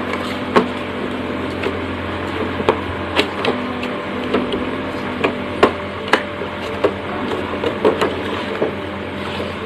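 Cardboard product box being handled for unboxing: scattered light knocks, taps and rustles over a steady hum.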